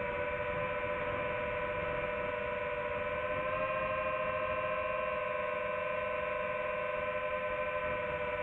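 FPV quadcopter's electric motors whining steadily at several close pitches, rising slightly about three and a half seconds in as the throttle changes.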